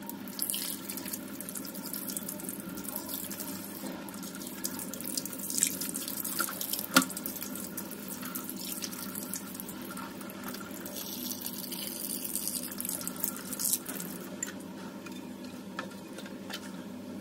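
Tap water running steadily into a stainless steel sink and splashing over a whole fish as it is rubbed clean by hand. A single sharp knock about seven seconds in.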